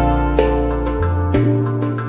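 Background music: plucked notes over held low bass notes, the bass changing pitch about a second in.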